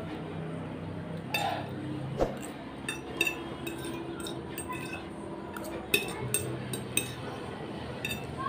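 Fork and spoon clinking and scraping against a plate while noodles are eaten, a dozen or so scattered light taps.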